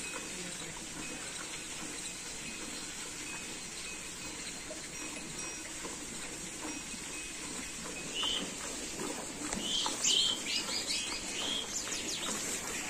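Cow being milked by hand into a steel bucket, the milk squirting into milk already in the pail. Birds chirp in short bunches over it in the second half.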